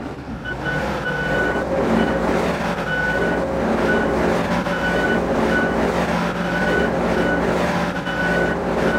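Case Minotaur DL550 compact dozer loader working in rock, its diesel engine running steadily under load. Its steel tracks clank, with short high squeals coming and going at irregular intervals.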